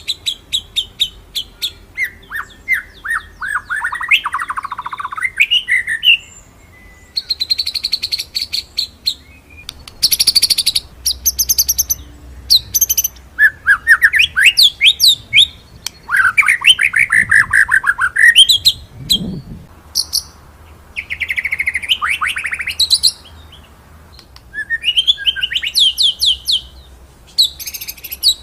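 White-rumped shama (murai batu) singing phrase after phrase of rapid rolling trills and sharp sweeping notes, with short pauses between phrases.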